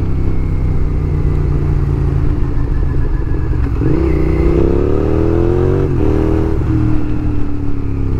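2006 Suzuki SV650's 90-degree V-twin engine pulling under way: the revs climb, then drop at upshifts, twice in quick succession about six seconds in, before settling at a steady pitch.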